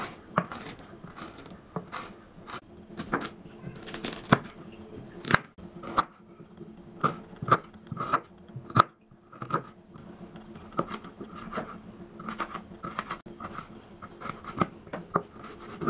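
Kitchen knife cutting vegetables on a plastic cutting board: a run of separate sharp cuts, irregular and roughly two a second, as it slices through green pepper, onion and carrot.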